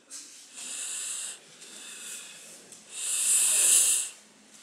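Two hissing swishes from aikido practitioners working through a throw on the mats, the second louder and about a second long, starting about three seconds in.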